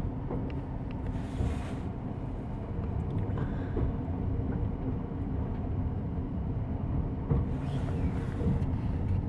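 Commuter train rolling along, heard from inside its trailing cab car: a steady low rumble of wheels on rail, with a few faint ticks and a short hiss twice, about a second in and near the end.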